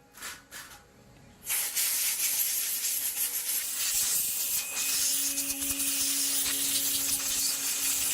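Two short hissing puffs, then a long, steady, high hiss of spray lasting about seven seconds that cuts off suddenly, with faint background music underneath.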